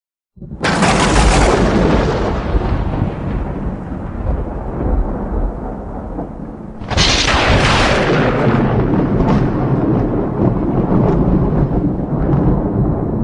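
Thunder: two sharp claps about six seconds apart, each followed by a long low rumble that keeps going between them.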